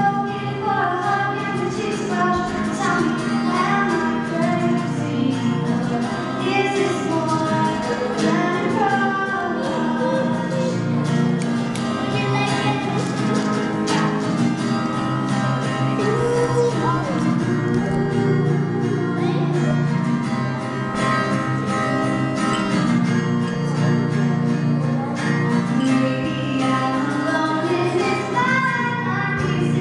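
Female voices singing a pop song over instrumental accompaniment, steady throughout.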